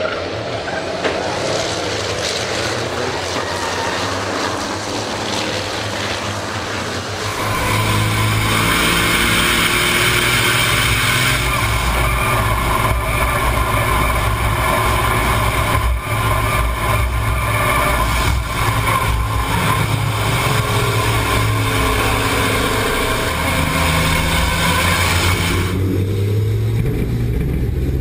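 Race trucks' diesel engines running flat out, with a steady low drone. From about seven seconds in it is heard from a camera on board one of the trucks, mixed with wind and road noise.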